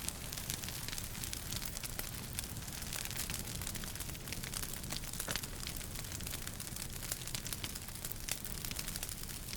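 Wood fire crackling in a fireplace: many quick, sharp pops and snaps over a steady low rumble and hiss of the burning.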